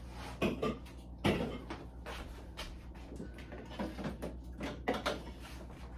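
Refrigerator contents being handled and moved about: a series of light knocks and clatters as containers are picked up and set down on shelves, the loudest about a second in, over a steady low hum.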